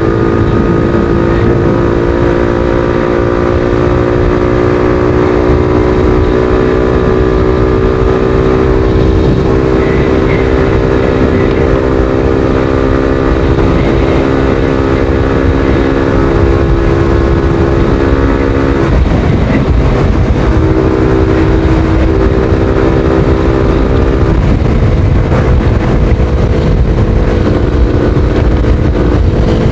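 Motorcycle engine running at a steady speed while riding, under heavy wind rumble on the microphone. The engine note holds steady, drops out about two-thirds of the way through, then comes back in shorter stretches.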